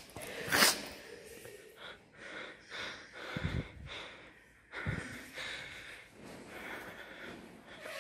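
Hushed, breathy human sounds close to the microphone, with a brief loud burst of noise about half a second in.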